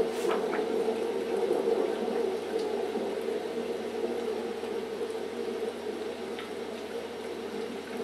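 A steady hum fills the room, with a few faint paper rustles as the pages of a large book are turned by hand.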